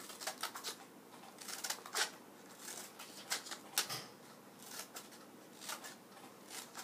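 Children's scissors snipping green construction paper: a run of short, crisp snips, irregularly spaced at about two a second, as slits are cut around the edge of a paper circle.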